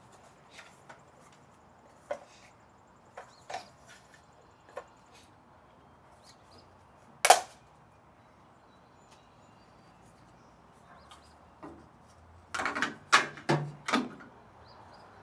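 Scattered clicks and knocks of metal and plastic parts and tools being handled while an elliptical trainer is assembled, with a single sharp knock about halfway through and a quick run of louder clunks near the end.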